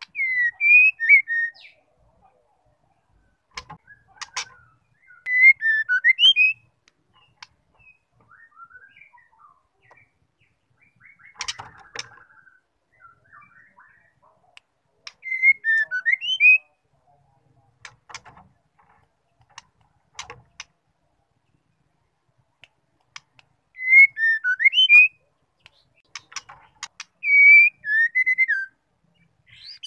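Female white-rumped shama singing in short phrases of a few quick, swooping whistled notes, five phrases a few seconds apart. Scattered sharp clicks and a brief chatter fall in the gaps between them.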